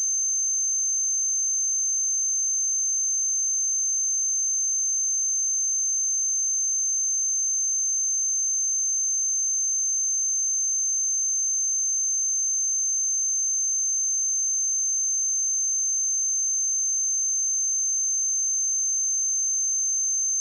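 A steady, unbroken 6272 Hz sine-wave test tone: a single high-pitched pure tone held at constant pitch and level.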